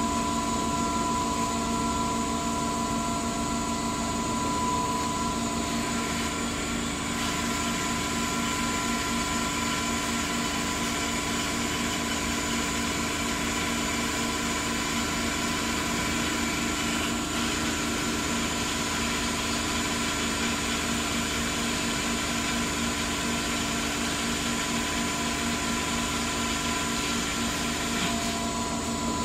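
Mark 1848 hydraulic surface grinder running under power, its table traversing back and forth: a steady machine hum with a regular low pulsing. A broader hiss joins about six seconds in and falls away shortly before the end.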